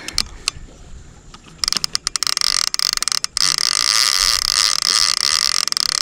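Fishing reel drag slipping as a big blue catfish pulls line: rapid clicks that speed up into a loud, continuous high buzz starting about one and a half seconds in, with a short break around halfway.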